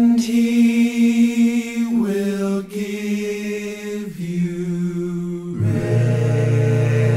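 Slow a cappella worship song: voices holding long notes that step down in pitch about every two seconds, with a lower, fuller chord coming in about five and a half seconds in.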